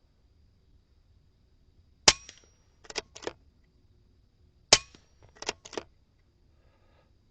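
Two shots from a Kalibrgun Snipe 2 .22 calibre PCP air rifle, about two and a half seconds apart. Each crack is followed by two quieter sharp clicks.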